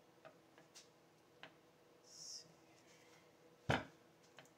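Small chainsaw parts being handled on a workbench: a few faint clicks and a short hiss about two seconds in. Near the end comes a single sharp knock as the chainsaw body is turned and set down on the wooden bench.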